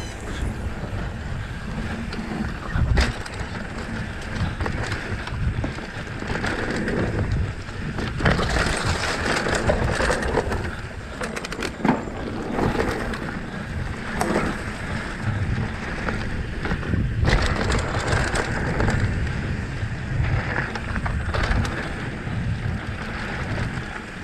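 Mountain bike ridden fast down a dirt trail: tyres rolling and crunching over dirt and gravel, with frequent rattles and knocks from the bike over bumps, and wind rumbling on the microphone.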